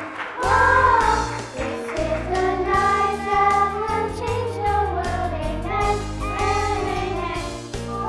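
Children's voices singing a song together over instrumental accompaniment with a steady bass line.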